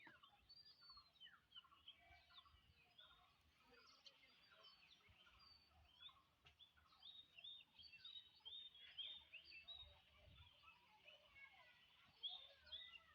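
Faint chorus of many small birds chirping and chattering, with short rising and falling calls overlapping throughout.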